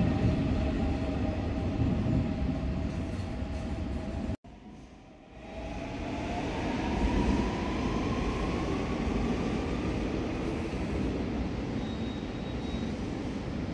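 Seoul Subway Line 4 electric train running through a station, a steady motor whine over a low rumble, cut off abruptly about four seconds in. The train noise then returns with a motor whine that rises steadily in pitch over several seconds.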